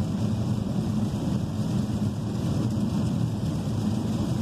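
Steady low rumble inside a Chevrolet's cabin while driving in heavy rain: tyres on the wet road and rain on the car.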